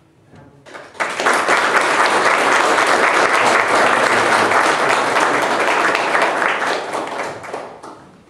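A roomful of people applauding. The applause starts suddenly about a second in, holds steady, and dies away near the end.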